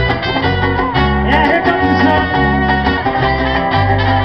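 Live band playing an instrumental passage: trumpet, acoustic guitar, electric bass and cajón over a steady beat, in a folk-rock style.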